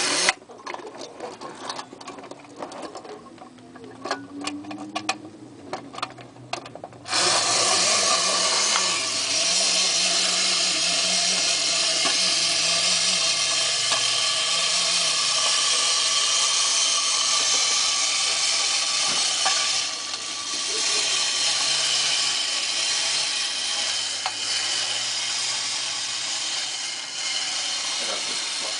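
Schylling tin Mechanical Robot toy: a few light clicks as it is handled, then about seven seconds in its walking mechanism starts suddenly. It runs on with a steady mechanical whirring buzz as the robot walks and its arms swing back and forth.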